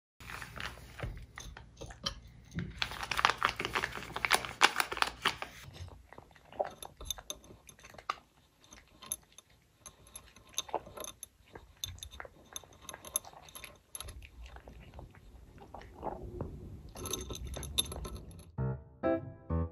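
A cat eating from a glass bowl of wet pouch food mixed with dry kibble: chewing and crunching with many small irregular clicks, densest and loudest in the first several seconds. Music comes in near the end.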